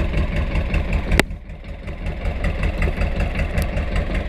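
Fishing boat's engine running with a steady, low, rhythmic throb. A sharp click sounds about a second in.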